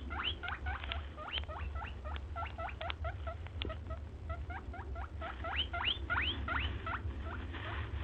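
Wooden spoon stirring a thick, flour-thickened bhaji in a clay pot, squeaking against the earthenware in quick, short rising chirps, several a second, over a low steady hum.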